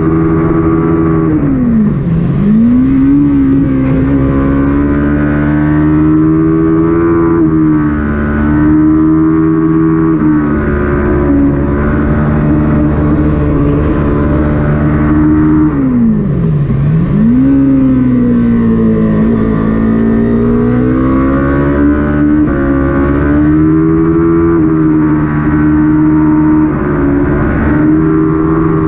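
Kawasaki Ninja 400's parallel-twin engine at racing revs, heard from onboard the bike. The pitch climbs and steps with gear changes, and twice, about two seconds in and again about sixteen seconds in, the revs fall sharply and pick up again.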